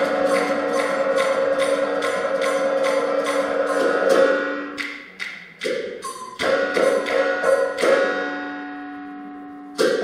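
Sichuan opera percussion: a fast, even run of sharp clapper and cymbal strikes over ringing gongs. It breaks off briefly about halfway, picks up again, then lets the ringing fade out before a fresh loud strike near the end.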